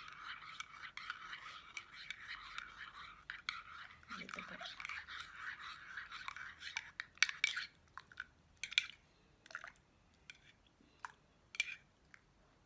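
Metal spoon stirring coffee in a ceramic mug, scraping and clinking around the inside for about seven seconds, then a few separate clinks as the stirring slows.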